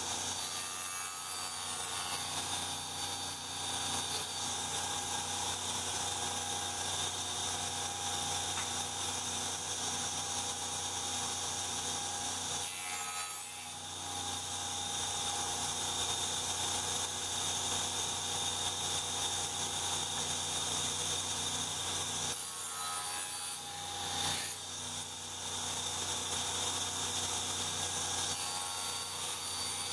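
Contractor's table saw running steadily while a miter sled is pushed through wood to cut miters, the blade sawing through the stock. The sound dips briefly twice, a little before halfway and about three-quarters through.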